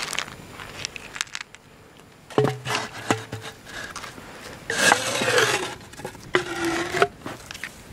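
Handling noises while a firework is set up: a stick and plastic parts scraping and knocking against an orange plastic pipe, with clicks, then two longer squeaky scrapes in the second half.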